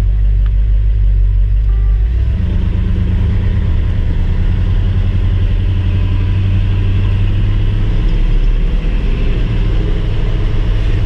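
1970 Ford F250 Highboy's 427 V8 engine, heard from inside the cab while driving. About two seconds in, the engine note rises as the truck accelerates, then runs steadily.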